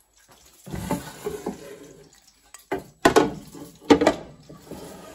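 A Cosori air fryer basket being loaded and pushed into the machine: a scraping shuffle about a second in, then a few sharp clunks in the middle, the two loudest about a second apart, as it knocks into place.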